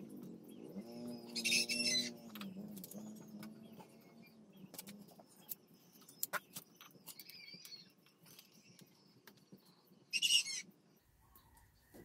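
Small clicks and knocks of a carburetor being handled and pushed into place on a motorcycle engine's intake. Behind them a low wavering call fades out over the first few seconds, and two short high-pitched squeaks stand out, one about a second and a half in and one near the end.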